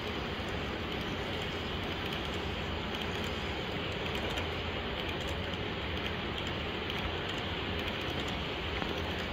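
Model double-stack container train rolling past on its track: a steady rolling rumble with a quick, irregular clicking of the cars' wheels over the rails.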